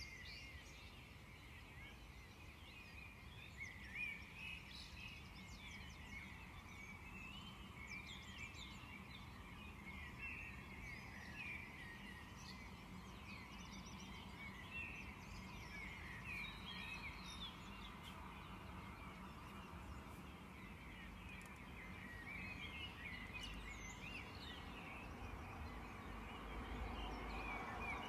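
Faint, steady chorus of many small high-pitched chirps from small animals, over a low background hiss.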